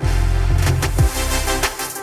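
Electronic background music with a heavy bass line and a beat.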